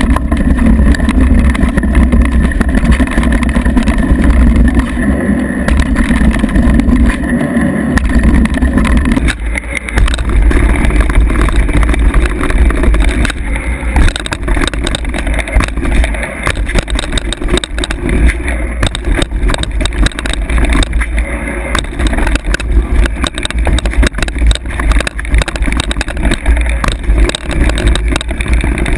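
Wind buffeting the microphone of a mountain bike's action camera, with tyre noise and the clatter and rattle of the bike over a rough dirt trail at speed. The sound changes abruptly about nine seconds in.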